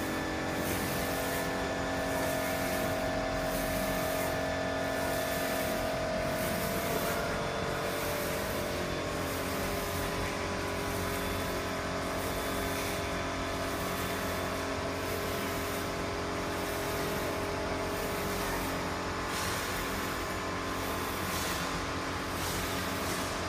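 UV flatbed printer running, its print-head carriage with UV curing lamp shuttling back and forth over ceramic tiles: a steady mechanical hum with several steady tones and a regular pulse about every second and a half.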